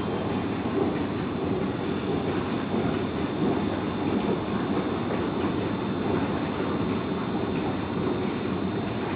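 R160B New York City subway train approaching slowly through the tunnel into the station, a steady rumble with a thin, steady high whine over it and faint light clicks.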